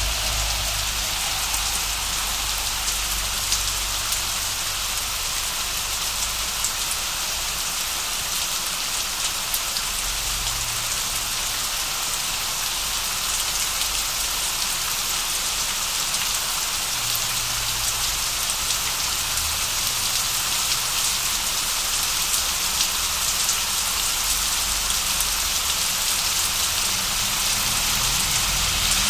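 Steady heavy rain sound effect: an even, unbroken hiss of rainfall, with a low rumble underneath at times.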